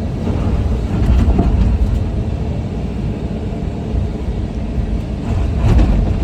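Komatsu 210 excavator's diesel engine running under load with a steady low rumble, growing louder about a second in and again near the end.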